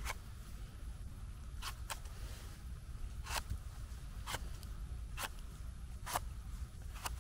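A pocket knife blade scraping and paring soil off the base of a freshly picked cep (king bolete) stem, in short crisp strokes about once a second.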